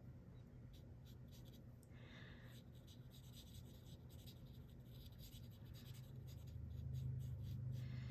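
Felt tip of a Stampin' Blends alcohol marker stroking and scratching softly on cardstock in short, irregular strokes as a butterfly is coloured in. A steady low hum runs underneath, growing louder near the end.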